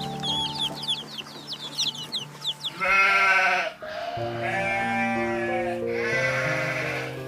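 Bleating livestock: three long, wavering bleats, each lasting about a second. Rapid high chirps come before them, over background music with steady notes.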